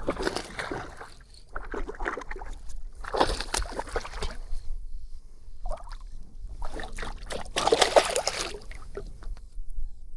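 Water splashing and sloshing in irregular bursts as a hooked largemouth bass thrashes at the surface while being landed.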